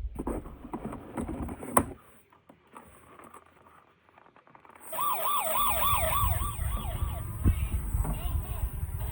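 A toy emergency vehicle's electronic siren wailing quickly up and down, about three cycles a second, starting about five seconds in and fading after a couple of seconds. Before it come a few clicks, the sharpest near the two-second mark.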